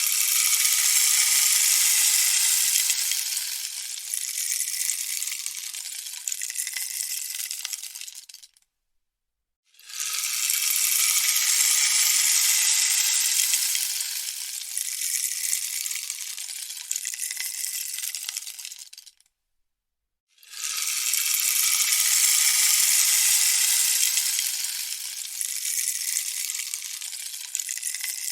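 Rainstick tipped over three times, each pass a hissing rattle of its fill trickling down for about nine seconds, loudest at first and then thinning out, with a second of silence between passes.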